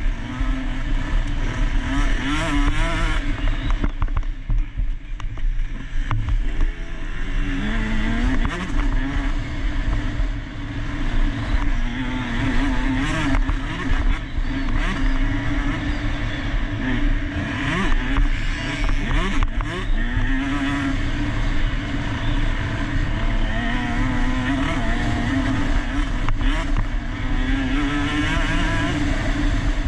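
Two-stroke KTM 150 SX motocross bike racing, its engine revving up and down over and over as it accelerates, shifts and slows, over a steady low rumble.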